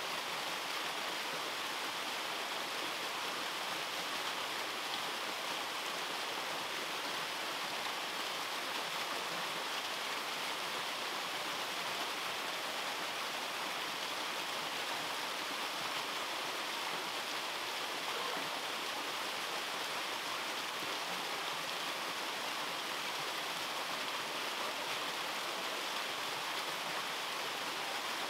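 Small waterfall splashing down over rocks: a steady rush of falling water, mostly a bright hiss, unchanging throughout.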